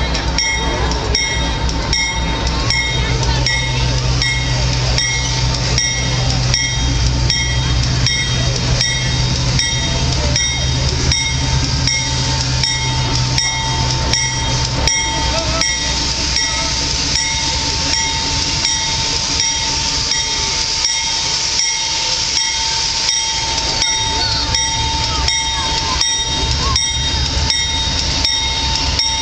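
Canadian Pacific diesel locomotive pulling a train slowly into a station. A low engine drone eases off about halfway through, under a steady high ringing with a regular pulse.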